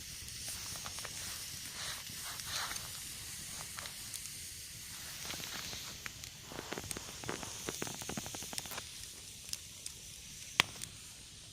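Campfire hissing and crackling, with a quick run of sharp crackles in the second half and one loud pop near the end.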